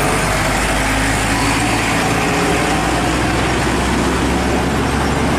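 Road traffic: a large truck towing a trailer drives along, its engine running steadily under an even hiss of road and tyre noise.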